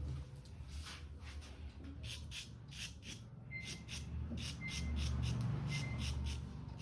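Razor scraping across a scalp in short, quick strokes, about two a second, shaving off hair, over a low steady hum.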